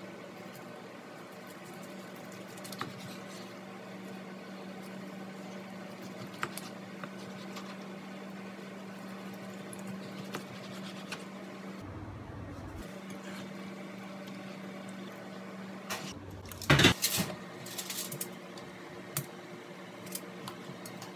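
A chef's knife slicing through a grilled beef roast on a plastic cutting board, with soft wet cutting sounds and small clicks over a steady low hum. About three-quarters of the way in there is a brief, loud clatter.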